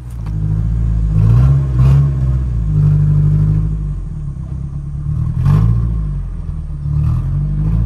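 A van's engine running under load, heard from inside the van, its revs rising and falling several times as it pulls a car with no working rear wheels on a tow strap, with a few short knocks.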